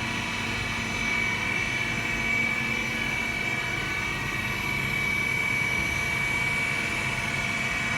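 HAMAI 3VS CNC milling machine running steadily, a constant high whine over a mechanical hum.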